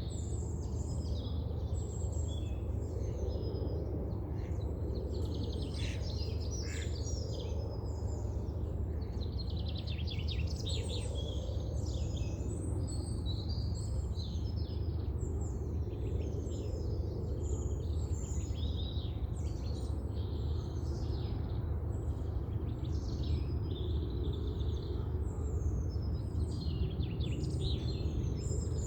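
A flock of small songbirds chirping and twittering up in the trees, short high calls overlapping one another without a break, over a steady low rumble.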